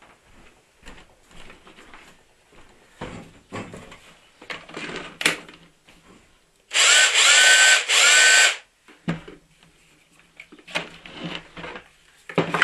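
Makita 18-volt cordless drill run on a rebuilt lithium-ion battery pack: the motor spins up with a rising whine, runs about a second, stops briefly and runs again. Before that come the clicks and knocks of the battery being slid into the drill and the drill being handled.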